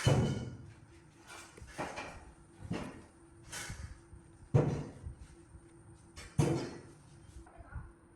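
A run of separate knocks and clunks, one every second or so, the loudest right at the start and about halfway and two-thirds through, over a faint steady hum: parts and tools being handled and set down during hands-on work on the microwave.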